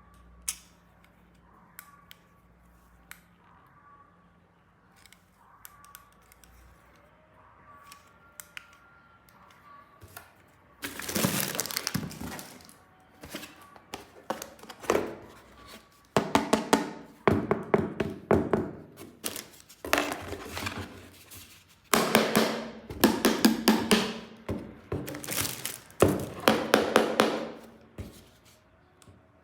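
Quiet scattered clicks of plastic toy parts being handled, then, about a third of the way in, a toy gun's electronic firing sound effect. It plays as loud bursts of rapid-fire clicking with a ringing electronic tone, each a few seconds long, repeated about five times.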